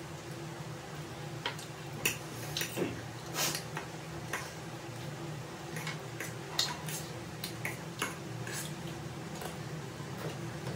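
Close-up eating sounds: chewing and slurping of noodles and chicken wings, with scattered clicks of chopsticks and a fork on the plate, over a steady low hum.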